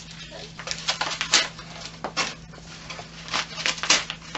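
Brown wrapping paper crinkling and tearing in short, irregular rasps, several in a row, as a Shetland Sheepdog rips at a wrapped present.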